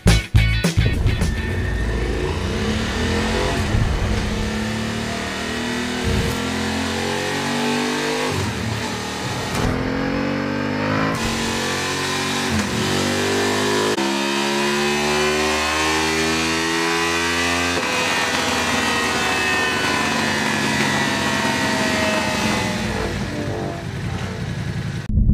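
Honda Hornet's two-cylinder engine pulling through the gears, rising in pitch several times and dropping back at each shift, with a steady stretch in the middle.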